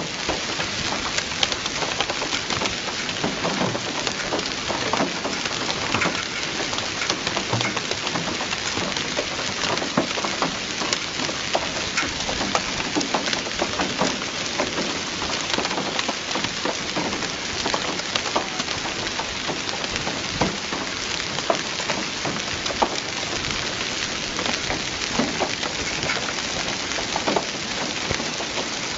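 Heavy rain falling steadily: a continuous hiss with many sharp drop impacts on a hard surface.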